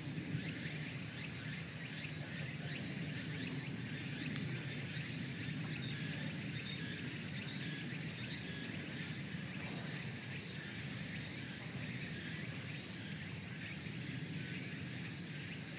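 Outdoor ambience: a steady low rumble under a stream of short, high chirps, several a second.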